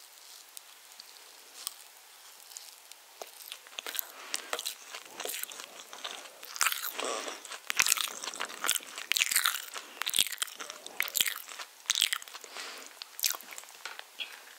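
Close-miked eating of spiced orange cake: chewing and mouth sounds with many small sharp clicks, sparse for the first few seconds and busier from about four seconds in.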